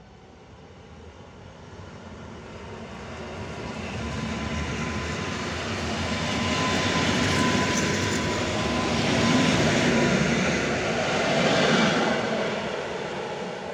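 Modernised EN57AL electric multiple unit passing at speed. The rumble of wheels on rail swells as it approaches and peaks as the cars go by, with a steady high whine through the first part. It eases off as the rear cab passes near the end.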